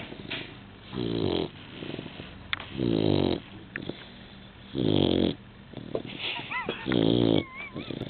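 Labrador retriever snoring in its sleep: four loud, pitched snores, about two seconds apart, each lasting around half a second.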